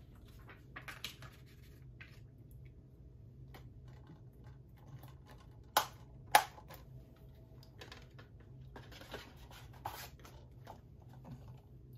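Plastic 4K Blu-ray case being handled: faint rustling and scraping, with two sharp plastic clicks about six seconds in, half a second apart.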